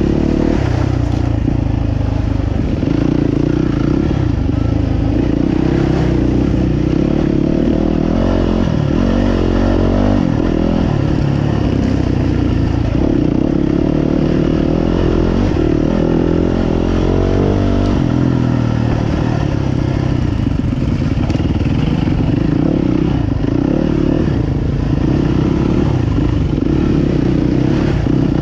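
Motocross motorcycle engines running hard, with the engine note rising and falling as the bikes rev.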